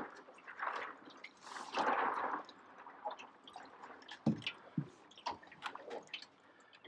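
Fillet knife cutting and prising the cheek meat out of a big snapper's head: wet squelching, scraping and small clicks, with a louder stretch of cutting about two seconds in and two low knocks a little after four seconds.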